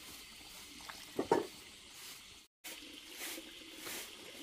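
Water poured from a plastic bottle into a pigeon cage's water dish, with a couple of loud glugs about a second in.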